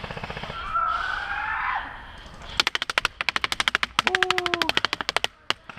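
Airsoft rifle firing full-auto: a long, rapid, even string of sharp shots, about fifteen to twenty a second, broken briefly midway, starting about two and a half seconds in and stopping near the end, followed by one lone shot.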